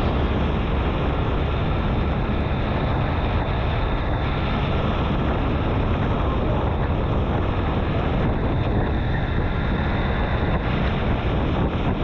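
Steady wind rush buffeting the microphone of a camera carried on a moving motor scooter.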